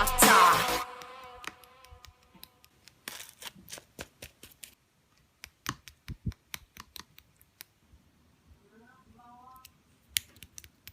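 The background song ends about a second in; after that, slime being played with gives sparse, quiet clicks and pops.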